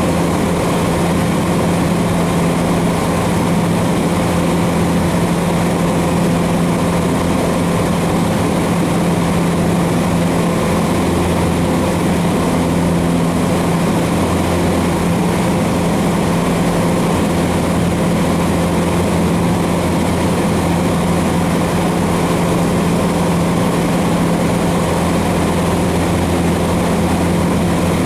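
Cessna 150's four-cylinder Continental O-200 engine and propeller droning steadily in flight, heard from inside the cockpit.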